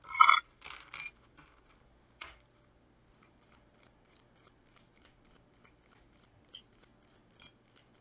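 A deck of cards shuffled by hand: a short loud rustle and flutter of cards at the start, then soft scattered ticks and rustles as the cards are worked.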